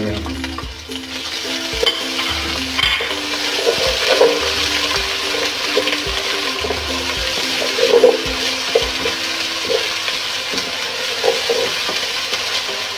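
Onions and ginger-garlic paste sizzling in hot oil in a non-stick pot while being stirred and scraped with a wooden spatula, with short knocks of the spatula against the pot. The sizzle grows louder about three seconds in.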